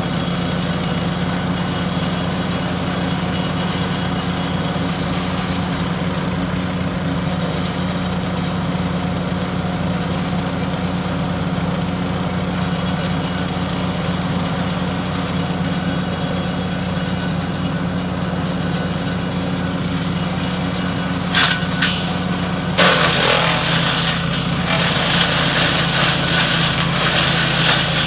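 Small gas engine of a wood chipper running at a steady speed. About 21 seconds in there is a short sharp noise. From about 23 seconds a louder, rough chipping noise over the engine goes on to the end, as limbs are fed through and cut into mulch.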